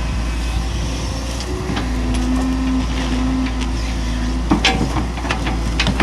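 Hitachi excavator's diesel engine running steadily under work, with a steady whine for about two seconds in the middle and a few sharp knocks near the end.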